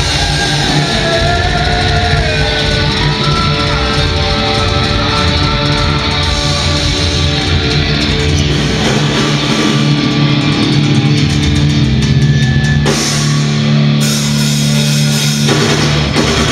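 Live heavy metal band playing loud: distorted electric guitars over bass and a drum kit.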